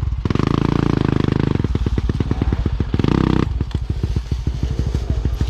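Enduro motorcycle engine working off-road. The throttle opens to high revs twice, and in between the engine drops back to slower, distinct firing pulses.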